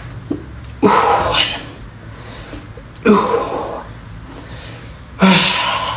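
A man breathing out forcefully with each push-up rep: three sharp, noisy breaths about two seconds apart, the strain of a hard last set.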